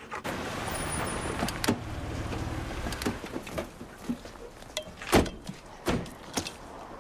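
A car door opening and a long metal catch pole being pulled out of the car, with a series of knocks and clanks, the loudest about five seconds in, after a low steady rumble in the first few seconds.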